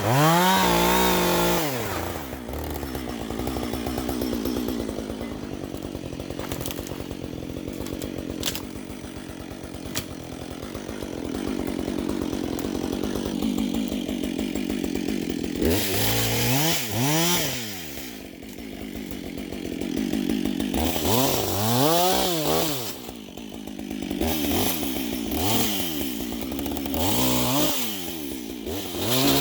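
Husqvarna 555 two-stroke chainsaw cutting brush: a steady run under load through the first half, then several quick revs up and back down.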